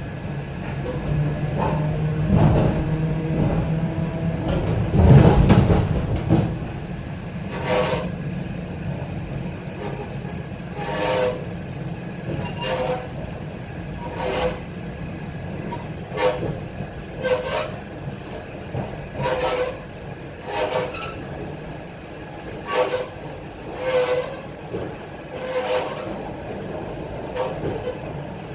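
ET2M electric multiple unit heard from inside the passenger car while running: steady rolling noise with a low hum over the first few seconds, louder about five seconds in, then the wheels knocking over rail joints every second or two.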